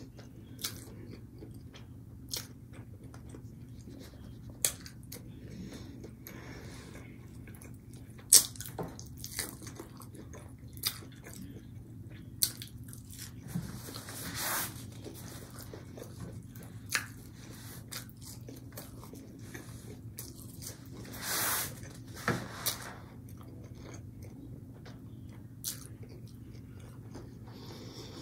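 A person chewing and biting breaded fish sticks close to the microphone, with scattered sharp crunches and clicks. Two longer hissing sounds come about halfway and about three-quarters of the way through.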